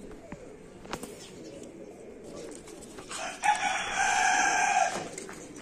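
A rooster crowing once, a loud call of nearly two seconds starting about three seconds in.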